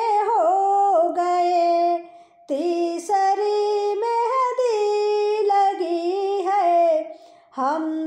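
A woman singing a Hindi Navratri devotional song (mata rani geet) with no accompaniment, holding long, wavering notes, with short breath pauses about two seconds in and again near the end.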